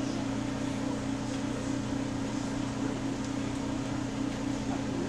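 Steady low machine hum with a constant drone, like an appliance or fan running, over faint room noise.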